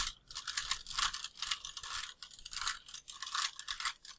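Plastic 3×3×3 Rubik's cube being twisted, its layers turned in quick succession with short rasping clicks, two or three turns a second.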